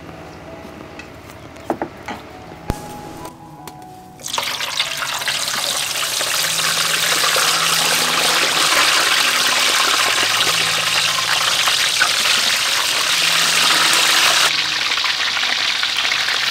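Whole fish deep-frying in hot oil in a wok, a dense sizzle that starts suddenly about four seconds in, after a few light clicks and knocks. The sizzle holds steady and loses some of its highest hiss near the end.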